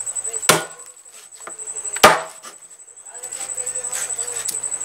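A large kitchen knife chopping through grilled chicken and hitting a bamboo cutting board: two sharp chops about a second and a half apart.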